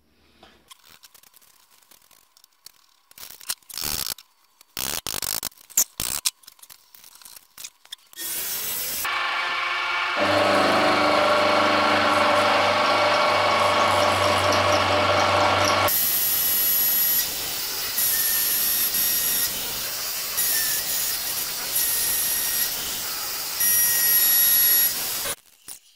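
Scattered clinks and knocks of a steel workpiece and wrench being handled in a milling vise, then about eight seconds in a Sieg X1 mini mill's motor comes up to speed and runs loudly with a steady whine. The sound changes about halfway through and cuts off suddenly near the end.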